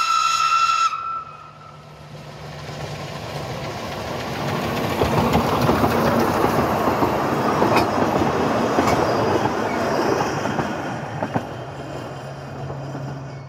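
Isle of Man Railway narrow-gauge steam train: the locomotive's whistle ends about a second in, then the train comes up and runs close past, loudest in the middle, with a few sharp clicks of its wheels over the rail joints, and fades as it draws away.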